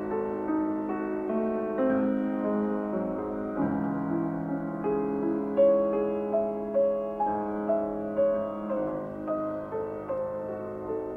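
Background piano music: single notes and chords struck one after another, each fading away.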